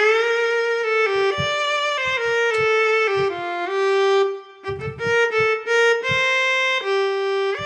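Physically modelled solo viola from the SWAM Solo Strings v3 software instrument, playing a slow legato melody of sustained bowed notes that step and slide between pitches. The phrase breaks off briefly about four and a half seconds in, then resumes.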